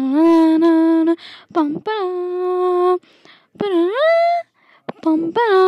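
A voice singing a wordless tune in long held 'pam' notes, four of them with short breaks between, the third sliding up before it settles: a sung imitation of an answering machine's waiting tune.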